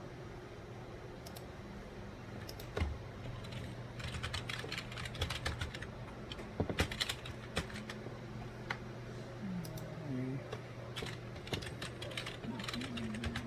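Typing on a computer keyboard in irregular bursts of quick key clicks, over a steady low hum.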